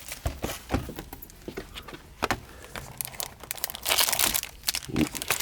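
Packaging of a trading-card display box crinkling and tearing as it is opened by hand, in irregular crackles that grow into a louder flurry about four seconds in.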